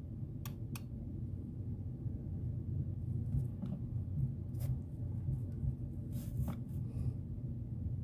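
Fingertip taps on a touchscreen thermostat: a handful of light, sharp clicks. Two come close together about half a second in, and more follow around four and six seconds in. A steady low hum runs underneath.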